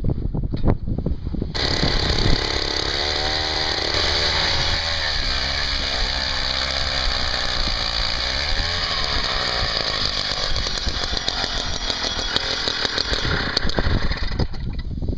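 Gas-powered ice auger running at high speed as it drills a hole through lake ice, its engine pitch dipping and recovering under load in the middle before it winds down near the end.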